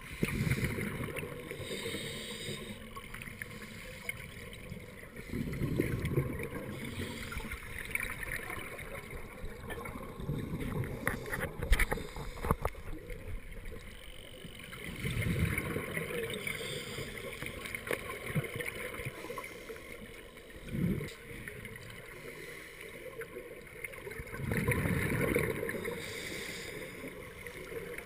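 Scuba regulator exhaust bubbles heard underwater: a bubbling rumble that swells with each exhalation, about every four to five seconds, six times. One sharp knock comes about twelve seconds in.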